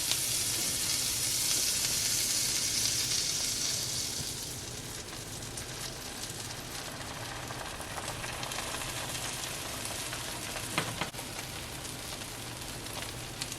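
Pancake batter sizzling in a hot frying pan, a steady hiss that is loudest for the first few seconds, just after the batter goes in, then settles to a quieter sizzle.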